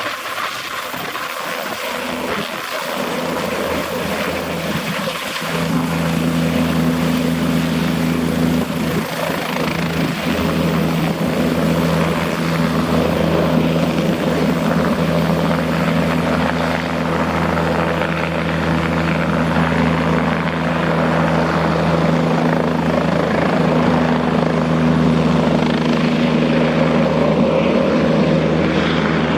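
Turbine helicopter running: rotor and engine noise that grows gradually louder. About five seconds in, a steady low droning tone comes in strongly and holds.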